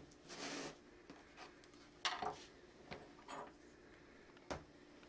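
A knife scraping and spreading chicken liver pâté onto a thin slice of baguette: a short scrape near the start, a louder one about two seconds in, a few light knocks, and a sharp click about four and a half seconds in.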